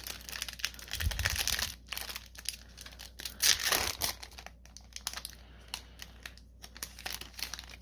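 Magic: The Gathering booster pack's foil wrapper crinkling and being torn open by hand, loudest about three and a half seconds in, then dying down to occasional light crackles as the cards are handled.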